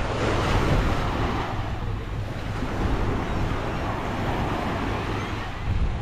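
Small ocean waves breaking and washing up the beach, with wind rumbling on the microphone.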